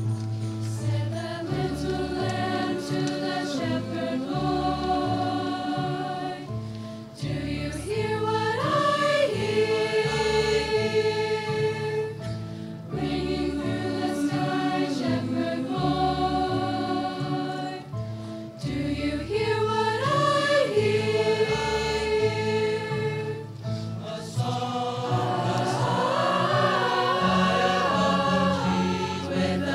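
School choir of girls' and cadets' voices singing a Christmas carol in parts, in long held phrases with short breaks for breath between them.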